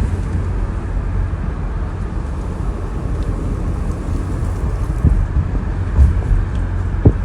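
Steady low rumble of a car in motion, road and engine noise, with a few short bumps or knocks from about five seconds in.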